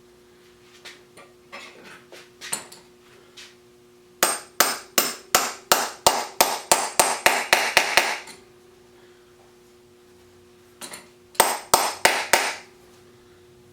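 Hammer tapping a wheel bearing back into a McLane edger wheel: a few light taps, then a fast run of sharp strikes at about four a second, a pause, and a last short burst of five strikes.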